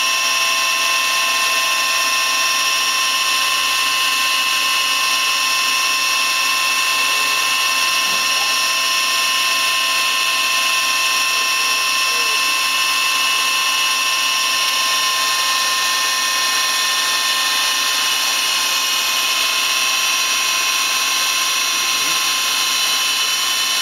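Star SV20 CNC Swiss lathe running with its spindles turning: a steady, high-pitched whine of several tones over a hiss, unchanging throughout.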